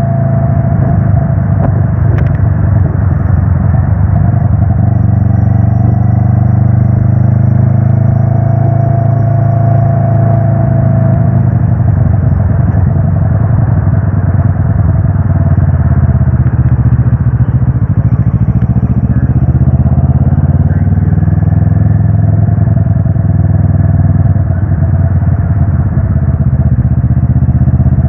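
Loud, steady wind rush on the microphone over the drone of a motorcycle riding at speed, heavy in the low end and unchanging throughout.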